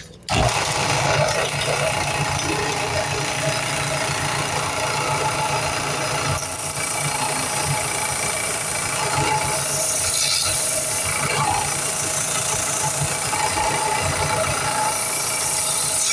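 Power sander running steadily as a wooden knife handle is shaped against it, a constant machine hum under loud grinding noise.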